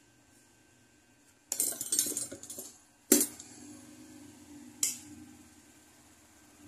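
Small metal hand tools clinking and rattling as they are picked up and handled: a jangle of clinks about one and a half seconds in, then a sharp single clink about three seconds in and another near five seconds.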